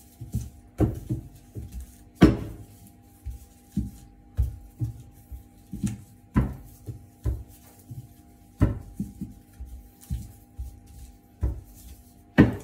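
Metal drink can used as a makeshift rolling pin, rolling and knocking on a wooden board as baozi wrappers are rolled out: irregular sharp knocks every second or two, the loudest about two seconds in and near the end. A steady low hum of several held tones runs underneath.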